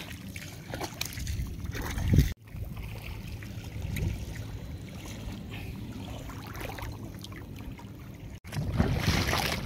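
Seawater sloshing and gurgling around a woven basket of fish dipped into shallow water. The sound cuts out briefly twice, about two seconds in and near the end.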